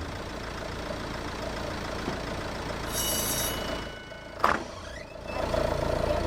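A motor vehicle's engine running steadily, with a brief high-pitched beep about three seconds in and a sharp knock a second and a half later.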